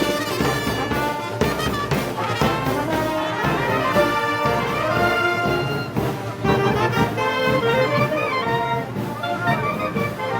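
Brass band playing festival music, trumpets and trombones carrying the melody over a steady beat.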